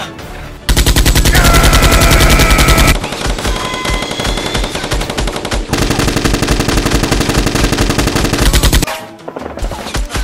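Rapid automatic gunfire sound effect in two long bursts, one starting about a second in and the other about halfway through, with music underneath.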